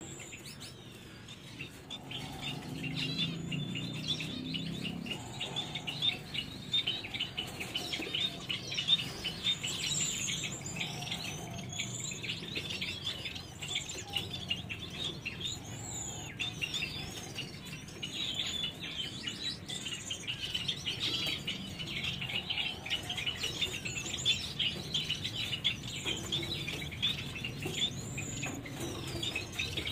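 A flock of captive finches chirping continuously: a dense chatter of short, high chirps, with whistled notes gliding up and down above it.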